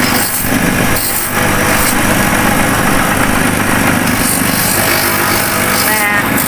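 Electric motor spinning a sanding drum, with a sneaker's sole pressed against it and sanded to roughen the surface for gluing on a rubber sole; a steady, loud mechanical hum with grinding noise.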